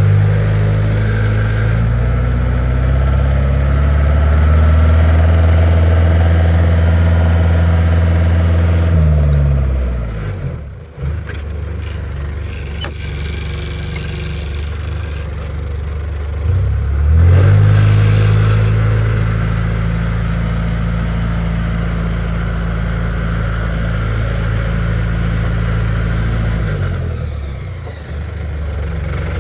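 2006 TUG MA50D25 baggage tow tractor's engine running as the tractor drives, with a steady pitch. About ten seconds in it drops back toward idle, then revs up again a little past halfway, holds steady, and eases off near the end.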